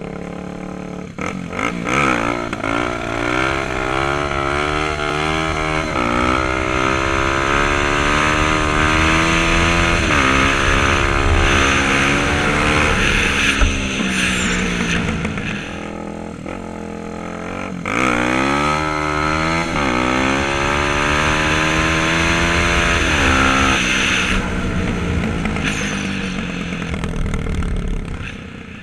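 Kawasaki dirt bike engine accelerating hard through the gears, its pitch climbing and dropping back at each quick upshift. It eases off for a few seconds in the middle, then pulls through several more gears and dies down near the end.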